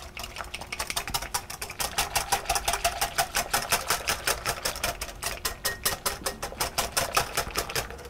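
Wire whisk beating a cream and rice-flour mixture in a glass bowl, its wires ticking against the glass in a fast, even rhythm of about eight strokes a second.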